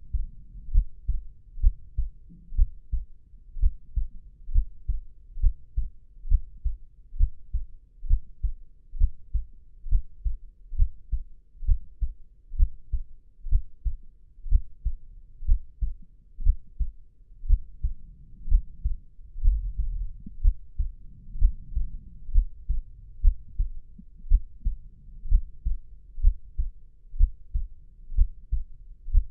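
Human heartbeat, a steady rhythm of low, muffled double thumps (lub-dub) repeating evenly throughout.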